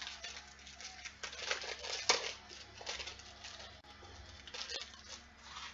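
Crinkling and tearing of a trading-card pack wrapper being ripped open, with cards rustling as they are handled, and a sharp snap about two seconds in.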